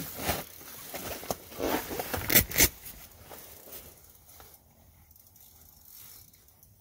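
Rustling of winter clothing and handling noise, with a few sharp clicks, the loudest two close together a little over two seconds in, then it falls quiet.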